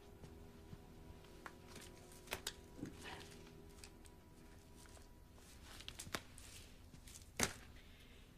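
Quiet room with faint rustling and a few small clicks and taps as a man handles things at his shirt pocket, the loudest tap near the end. The last of a held music chord fades out in the first few seconds.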